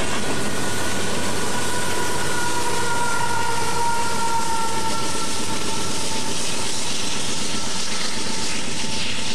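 Freight train of coal hopper cars rolling past close by: a steady rumble and rail noise of steel wheels on track, with a faint high whine that slowly falls in pitch through the first half.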